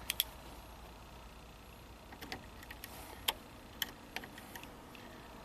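Faint, scattered small clicks and light taps as test-lead clips are handled on the terminals of a hybrid battery's relay assembly: a couple right at the start, then a run of them between about two and four and a half seconds in.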